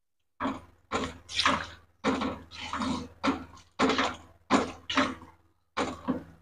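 Wooden spatula stirring a pan of cabbage and carrot soup, the broth sloshing in a quick series of strokes, about two a second.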